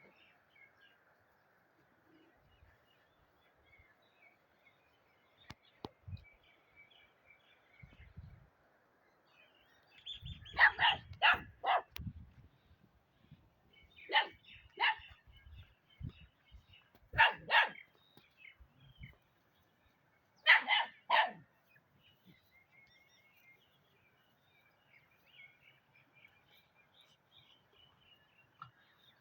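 Dog barking in short bouts: a quick run of three or four barks about ten seconds in, then pairs of barks a few seconds apart, the last near the two-thirds mark. Birds chirp faintly in the background.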